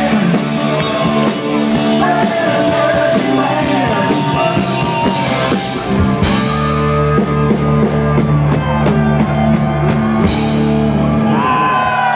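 Live rock band playing loud, with drum kit, bass guitar and keyboard plus crowd singing or shouting. In the second half the band holds a long final chord under drum and cymbal hits, which cuts off near the end as the crowd starts cheering.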